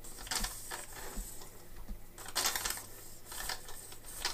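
Hand-turned bearing press, a threaded rod with washers, pressing a cartridge bearing into its seat. It gives about five short metallic scraping strokes as it is turned.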